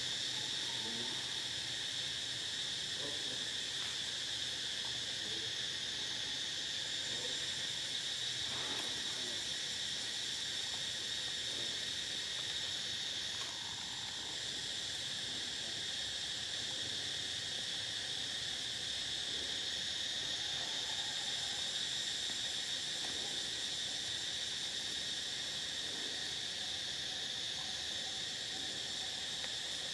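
Steady insect chorus in tropical forest, a continuous high-pitched shrill with a slight drop in level about halfway through.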